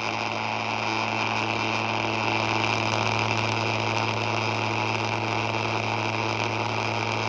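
Loudspeaker playing a steady 110 Hz test tone turned up loud, with the plastic coffee-can lid on it buzzing and the salt on the lid rattling as it is shaken into a standing-wave pattern.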